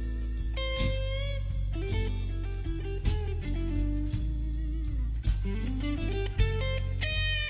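Texas blues band playing an instrumental break: an electric guitar plays the lead, its notes bending up and down in pitch, over bass and drums.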